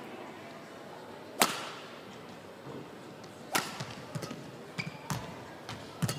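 Badminton rally: sharp racket strikes on the shuttlecock, the loudest about a second and a half in and another about three and a half seconds in, with lighter taps and short squeaks of the players' shoes on the court floor between them.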